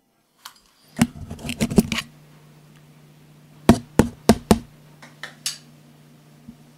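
Sharp clicks and taps of a small hand tool working at a wall fitting: a quick cluster about a second in, four hard knocks around four seconds in, then a few lighter taps. A steady low hum sets in with the first taps and continues underneath.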